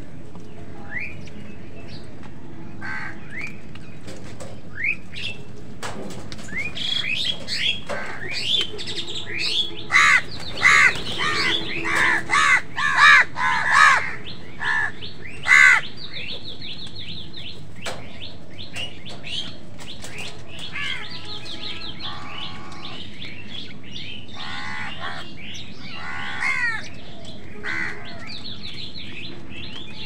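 A flock of house crows calling in short, harsh caws over one another, loudest and most crowded around the middle.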